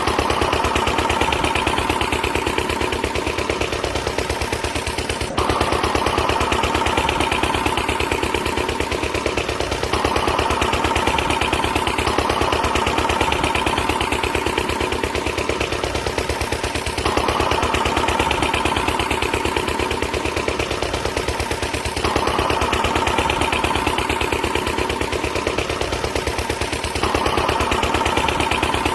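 Small motor-driven homemade machine running with a fast, continuous rattle, a rapid stream of clicks over a steady whine. The tone shifts slightly every five seconds or so.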